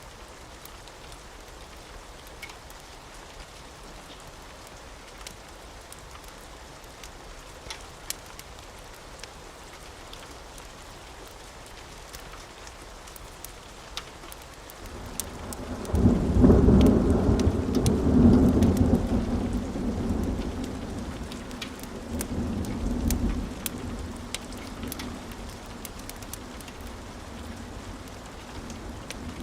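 Steady rain falling, with a long rolling rumble of thunder that starts about halfway through. The thunder is loudest in the first few seconds, then fades away over about ten seconds.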